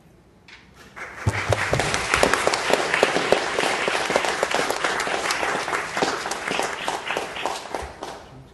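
Congregation applauding, starting about a second in and dying away near the end.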